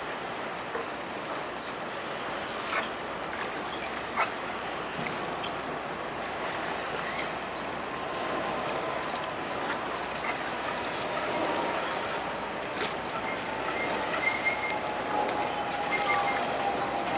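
Harbour water lapping with a light wind, and from about halfway a faint whine that slowly falls in pitch as a Toronto Island passenger ferry's engines draw near.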